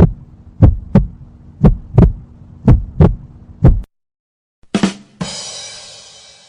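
Heartbeat sound effect: low double thumps, lub-dub, about once a second over a steady hum, stopping near four seconds in. About a second later comes a short hit, then a hissy sound that fades out over about a second and a half.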